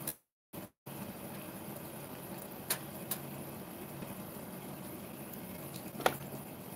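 Steady low background noise, with a short dropout at the start and a few faint clicks, the sharpest near the end.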